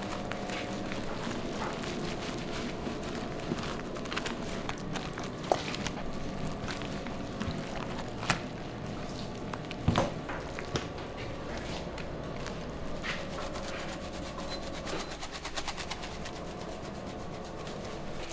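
A steady hum with scattered clicks and knocks throughout, a few of them sharper, the loudest about ten seconds in.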